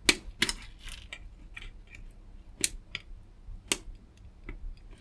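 Long-nose pliers clicking and scraping on a small plastic wire-to-board plug as it is pulled out of its header on a circuit board; the plug is glued in. A handful of sharp clicks at uneven intervals, loudest at the very start, with lighter ticks and scrapes between.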